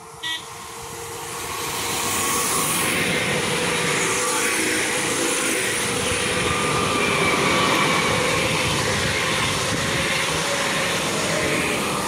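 Two coupled Newag Impuls electric multiple units passing at speed: a rush of wheels on rail that swells quickly and holds loud, with a faint high whine over it. A short horn toot sounds just at the start.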